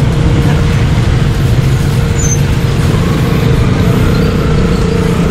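Road traffic heard from a motor scooter riding in dense city traffic: engines of the scooter, buses and motorbikes close around it, with a steady hum under the noise.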